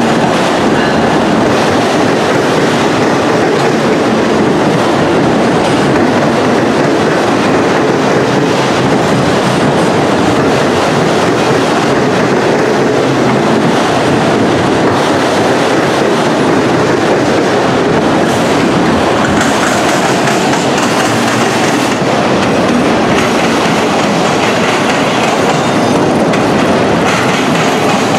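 Freight train passing at close range: diesel locomotives, then a long string of autorack cars. It makes a loud, steady rumble with the clickety-clack of steel wheels on the rails.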